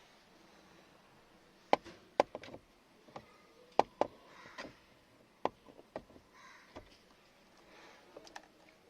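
A series of sharp, irregular knocks and clicks of hard parts being handled as a car steering wheel is worked off its steering column after the centre bolt is out.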